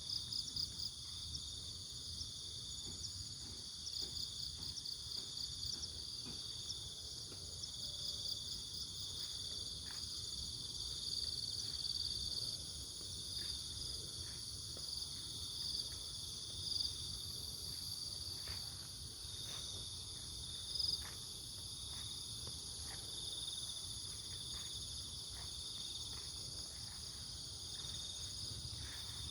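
Chorus of crickets and other insects trilling steadily in several high pitches, with some louder pulsing trills coming and going, over a faint low rumble.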